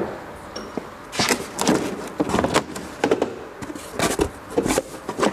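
Parts of a wheel-balancer motorcycle adapter kit being handled and set down on a surface. It is a run of short clatters and knocks that comes in several bunches, one every second or so.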